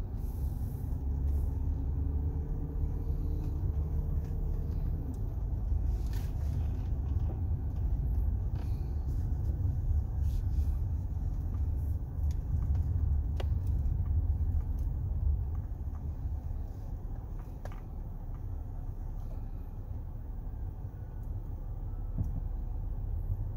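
Low rumble of a car's engine and road noise heard inside the cabin while driving, with a faint engine tone rising over the first few seconds as it picks up speed. About sixteen seconds in the rumble eases as the car slows to a stop.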